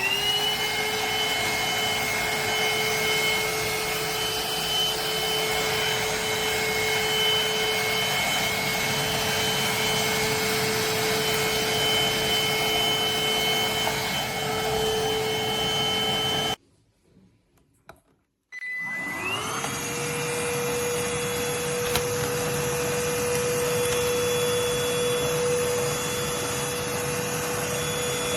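Anktel PowerClean 2400 cordless handheld vacuum cleaner running with a steady high whine. It cuts out sharply about 16 seconds in, stays silent for about two seconds, then spins back up with a rising whine and runs steadily again.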